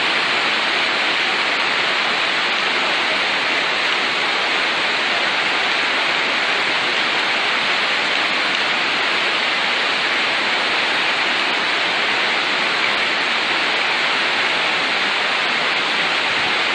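Steady, loud rushing noise of a heavy storm: rain and surging floodwater, with no change in level.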